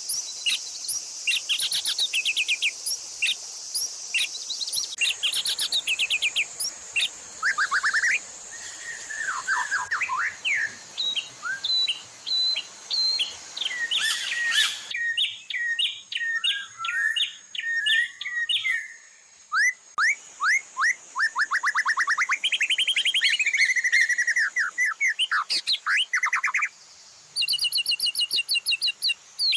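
Mixed recordings of several songbirds singing over one another, as in a masteran tutor track for white-rumped shamas: fast high trills, rapid runs of repeated sharp notes and sweeping whistled phrases. The mix of songs changes abruptly about halfway through.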